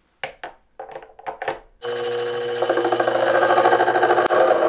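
A few sharp metal clicks and clacks, then a small benchtop metal lathe starts about two seconds in and runs with a steady whine, its tool turning a stainless steel bolt held in the three-jaw chuck.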